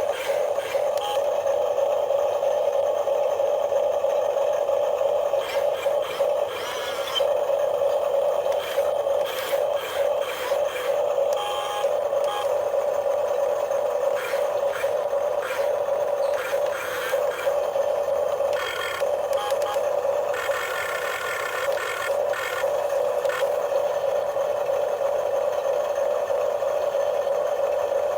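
Small electric motor of an RC cement mixer truck running with a steady whine, with scraping and rattling clicks on and off.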